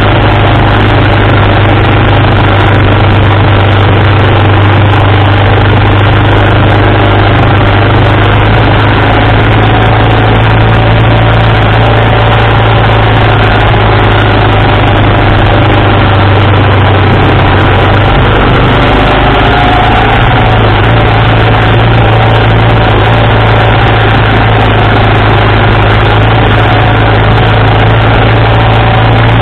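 1987 BMW R80RT's air-cooled flat-twin engine running steadily at road speed, heard from a camera mounted on the engine bar, mixed with heavy wind noise on the microphone.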